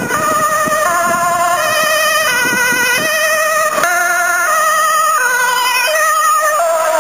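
Dutch ambulance two-tone siren, alternating between a high and a low note about every 0.7 seconds, as the ambulance drives toward the listener on an urgent call and passes close by near the end.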